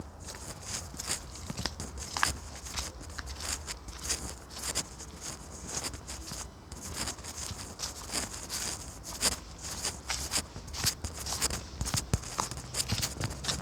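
Footsteps: irregular crunches and clicks over a low steady rumble.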